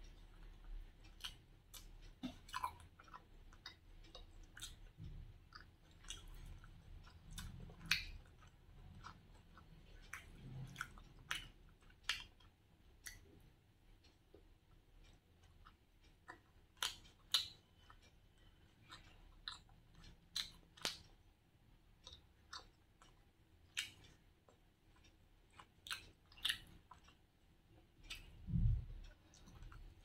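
A person chewing a mouthful of chicken shawarma: soft, irregular wet mouth clicks and smacks, with one low thump near the end.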